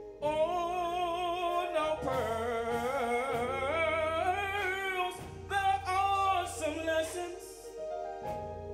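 Gospel choir singing with a lead voice sliding and bending in pitch, over instrumental accompaniment with sustained low notes.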